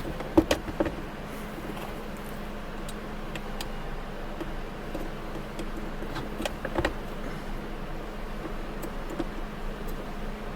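A few sharp clicks and knocks from handling a car's center console armrest lid and threading its bolts in by hand: a cluster about half a second in and another around six and a half seconds, over a steady low hum.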